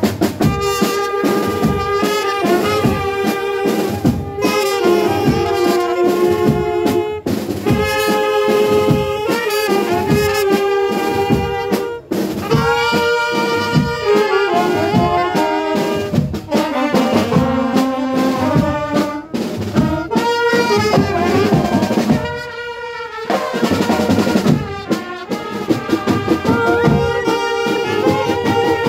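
A brass band plays a melody over a steady drum beat.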